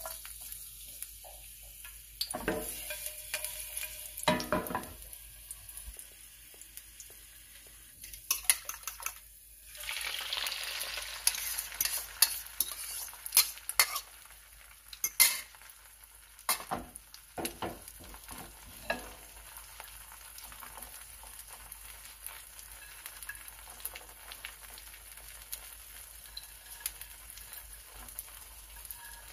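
Garlic and egg frying in oil in a nonstick pan. A burst of sizzling starts about ten seconds in as the egg hits the hot oil, with a metal utensil clicking and scraping against the pan for several seconds. It settles to a steady gentle sizzle.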